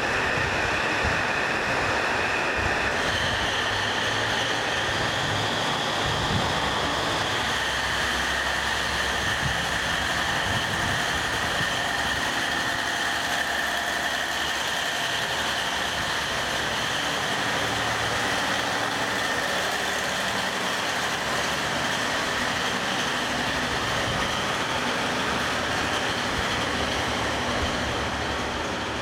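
JR KiHa 47 and KiHa 40 diesel railcars with their original six-cylinder DMF15HSA diesel engines, running hard under power as the two-car set pulls away and passes close by, with a steady high-pitched whine over the engine noise. The sound fades near the end as the rear car moves off.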